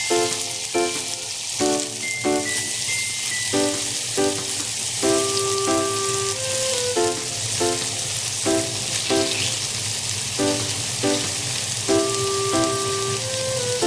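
Marinated chicken breast sizzling in hot oil in a frying pan as more pieces are laid in, a steady crackling hiss. Background music of short repeated notes plays over it.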